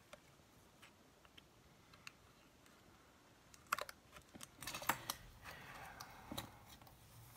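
Fingernails picking at and peeling the plastic wrapping on a paper pad: light, scattered clicks, a few sharper ones around four to five seconds in, then a short crinkling rustle.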